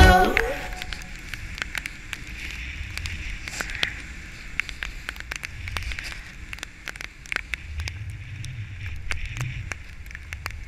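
A song stops about half a second in, leaving the camera's own sound of a snowboard riding over snow: a low rumble with many scattered sharp clicks and crackles and a steady hiss, as picked up by a pole-mounted GoPro Hero3+.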